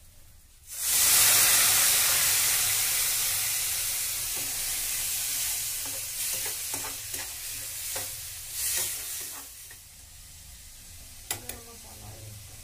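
Water added to hot masala in a kadhai hisses and sizzles loudly, starting suddenly about a second in, then slowly dies down over several seconds. A spatula stirs and scrapes the pan, with a few sharp clacks near the end.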